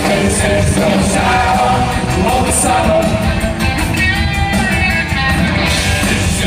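Punk rock band playing live: a sung vocal line over electric guitars and drums, with steady cymbal strokes.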